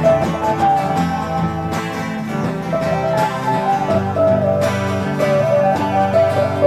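Music led by plucked acoustic guitar, with a held melody line running over it.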